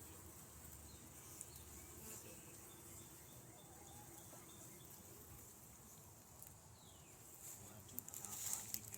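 Faint steady buzzing of Italian honeybees flying around their hive, with a short burst of rustling near the end.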